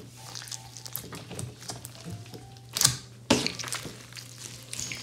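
Hands kneading and folding a large mass of glittery slime, with soft sticky squishing and two sharp smacks about half a second apart, nearly three seconds in.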